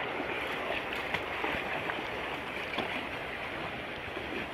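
Legs wading through shallow, flowing muddy water: a steady watery rush with small irregular splashes.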